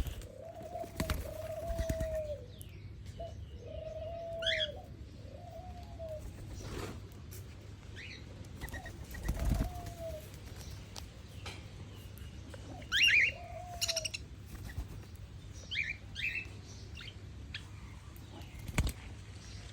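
Birds calling: a series of low, arched hooting notes, each under a second, bunched in the first few seconds and again later, with a few short high rising chirps and scattered knocks or wing flaps between them.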